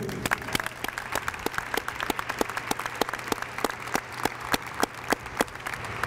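Applause from a small gathering, with individual claps standing out clearly, thinning out near the end.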